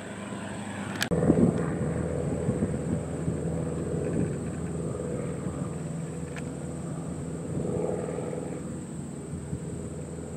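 A light single-engine propeller airplane drones steadily while it is still some way off on approach, with gusts of wind buffeting the microphone. A sharp click about a second in marks an abrupt change in the sound.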